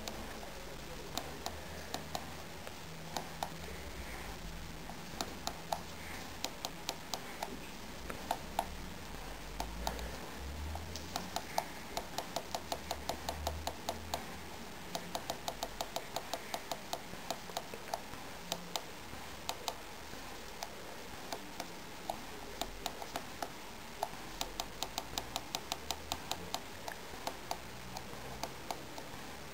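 Small push buttons on a homemade MP3 player's keypad clicking as they are pressed: single clicks at first, then runs of quick repeated presses at about four or five a second.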